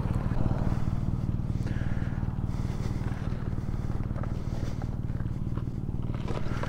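Motorcycle engine running steadily while riding: an even, low drone with a rapid pulse of firing strokes and no change in pitch.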